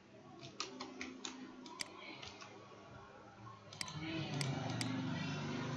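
Computer keyboard typing and mouse clicks, a scattered run of light clicks with a few sharper clicks later on. A low steady hum rises underneath about two-thirds of the way through.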